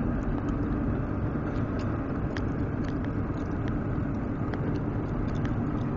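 Steady engine and road noise of a car being driven, heard from inside the cabin, with faint scattered ticks over it.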